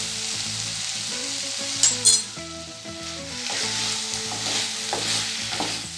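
Mixed vegetables sizzling in hot oil in a kadai while being stirred and tossed with a wooden spatula. The spatula knocks against the pan twice, sharply, about two seconds in.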